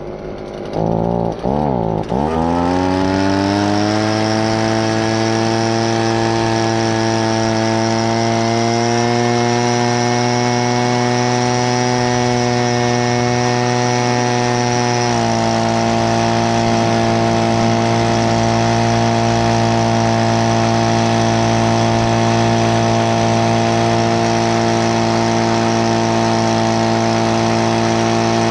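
A leaf blower's small engine speeding up over the first few seconds, then running steadily at high speed, with a slight change in pitch about halfway through, while it blows dust off a baler.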